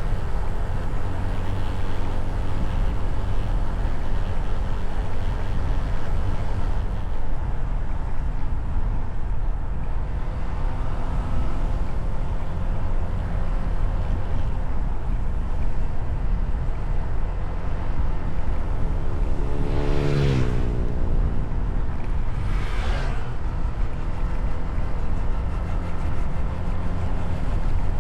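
Motorcycle engine running steadily on the move, with wind rushing over the microphone. About twenty seconds in, a passing vehicle goes by with a quick fall in pitch, and a second whoosh follows a few seconds later.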